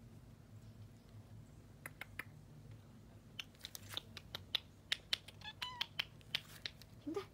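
A cat on a mesh garden lounger: from about two seconds in, a run of sharp, irregular clicks, with a short high chirp partway through and a brief low rising call near the end.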